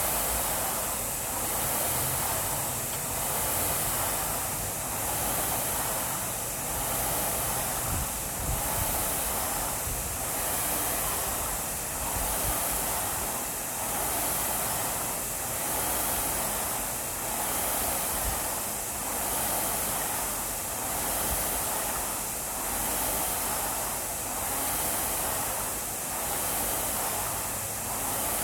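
Air-resistance rowing machine in use: the fan flywheel whooshes, swelling with each drive stroke about every two seconds at a steady, unhurried stroke rate.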